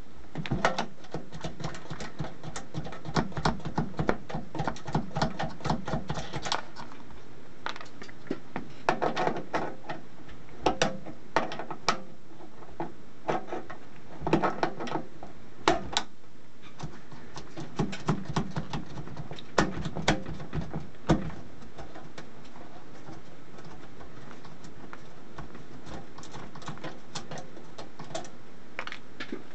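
Pliers clicking and scraping against metal as they turn the nuts off banana jacks mounted in a metal chassis panel. The sound comes in bursts of quick clicks and grows sparser in the last several seconds.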